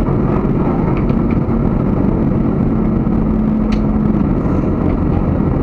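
Steady engine and road noise of a vehicle driving, heard from on board, with a humming tone held through the middle.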